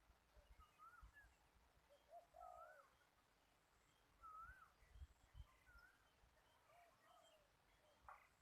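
Birds singing faintly in short, curved whistled phrases that repeat every second or two, over a faint low rumble.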